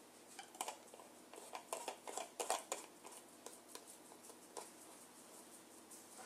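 Twist-off lid being put on and screwed down onto a filled glass honey jar: a run of faint small clicks and scrapes from about half a second to three seconds in, then a few scattered clicks.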